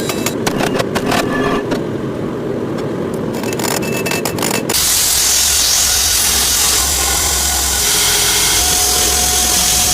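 Metalworking shop machinery: a rumbling run with irregular clicks and knocks, then, after an abrupt change about halfway through, a steady loud grinding hiss.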